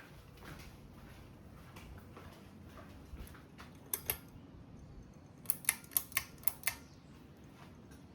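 Ceiling fan running with a steady low hum, with two sharp clicks midway and then a quick run of about six clicks.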